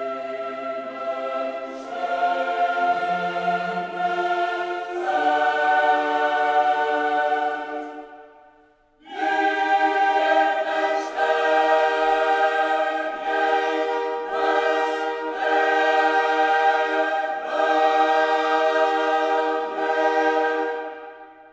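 Background music of slow, sustained choir-like chords that change every couple of seconds, breaking off briefly about eight seconds in and fading out at the end.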